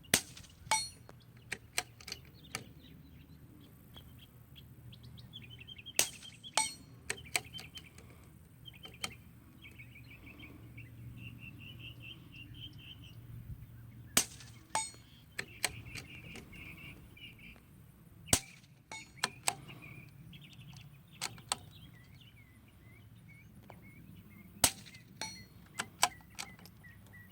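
Five suppressed shots, spaced several seconds apart, from an Anschutz 1712 .22 LR bolt-action rifle fitted with an AAC Element 2 suppressor and firing GemTech subsonic ammunition. Each shot is followed by a few lighter clicks of the bolt being worked. Birds sing between the shots.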